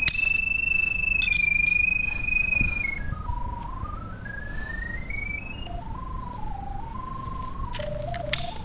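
Pipe-locator receiver tracking a drain camera's sonde, sounding one electronic tone that steps up and down in pitch as it is swept over the beacon. The tone holds high for the first few seconds, drops, climbs again, then wavers lower, with a few sharp clicks near the start and end.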